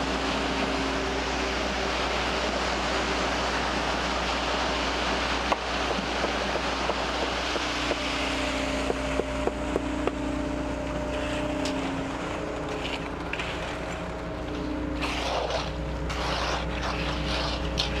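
Volumetric concrete mixer truck running steadily while it mixes and discharges wet concrete down its chute: a constant engine hum under the rushing noise of concrete sliding down the chute. Occasional short clicks and scrapes in the second half.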